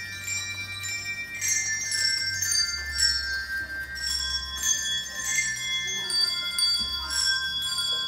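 Small bells ringing a tune, note after note struck and left to ring, over low held accompaniment notes.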